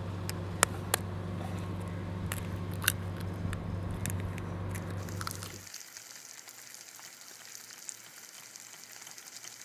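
A raw egg being cracked onto hot asphalt: a few sharp clicks of the shell breaking over a low steady hum, then, after the hum stops about halfway through, a faint steady sizzle of the egg frying on the hot road surface.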